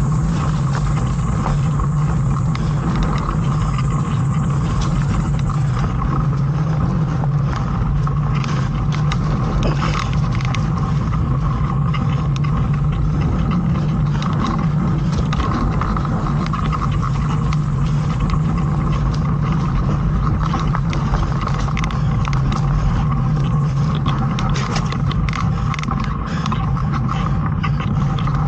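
Mountain bike rolling fast along a dirt singletrack trail: steady tyre and wind rumble with frequent small rattles and clicks from the bike.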